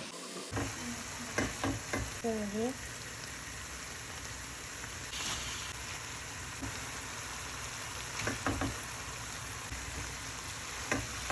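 Vegetables sizzling in a frying pan with a steady hiss; the pan holds onions, peppers and carrot with broccoli and coconut milk just added. A utensil clicks against the pan a few times.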